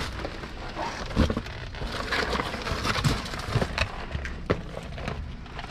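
Rummaging through dumpster contents: plastic bags and cardboard boxes rustling and shifting, with several sharp knocks as items are moved.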